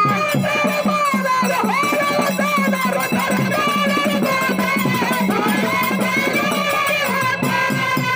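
Dollina pada, a North Karnataka folk song: a man sings a wavering, ornamented melody into a microphone. Small hand cymbals and a drum keep a fast, steady beat beneath him.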